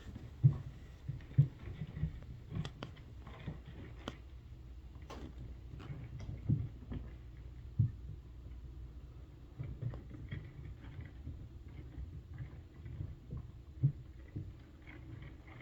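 Irregular light taps, knocks and scratching from inside a ceiling, a few sharper taps standing out among fainter ones, over a low steady hum.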